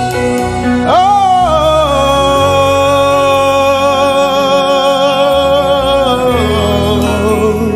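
Gospel worship singing: a man sings a long 'oooh', sweeping up about a second in and holding a wavering note for several seconds before dropping near the end, over instrumental accompaniment.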